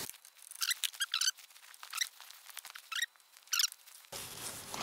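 A scattering of short, high squeaks as a fuel pipe on a diesel engine is worked off its connector with pliers and a screwdriver.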